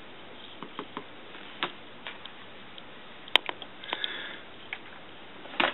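Loose papers crinkling and light scattered clicks as a cat shifts and paws while lying on them, with a short rustle about four seconds in and a cluster of crinkles near the end.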